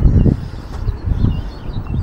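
Wind buffeting the microphone in uneven low rumbles, with a few faint bird chirps.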